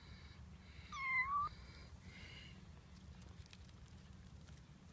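A kitten meows once, a short high-pitched call about a second in that dips and then rises at the end.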